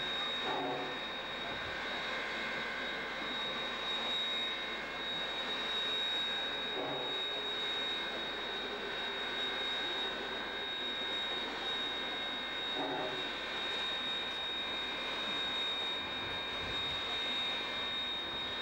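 Steam locomotive 934 standing at a platform with steam blowing off, a steady hiss.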